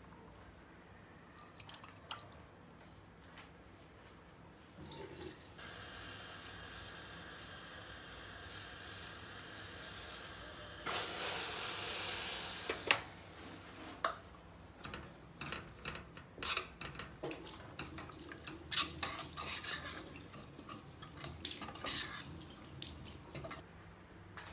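Flower-infused water in a stainless steel pot on a gas stove, hissing as it heats and then bubbling at the boil. The boiling is loudest for about two seconds as a cup of tapioca starch is tipped in. After that a utensil clicks and scrapes against the pot while the starch is mixed into the hot liquid.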